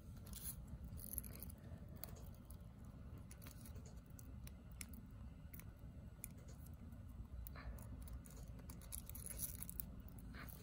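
Scissors snipping through a stack of folded aluminium foil: faint, irregular crisp snips and foil crinkles.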